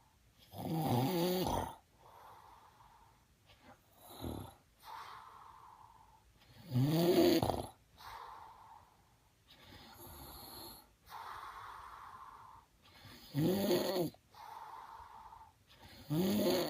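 Snoring: four loud snores, each about a second long, a few seconds apart, with softer breaths between them.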